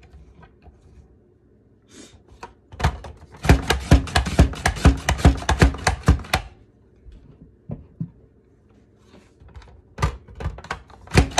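Plastic push-down mandoline slicer cutting potatoes on its fry setting: as the plunger forces each potato through the blade grid there is a fast run of clacks and crunches for about three seconds, a few single knocks, then another fast run near the end.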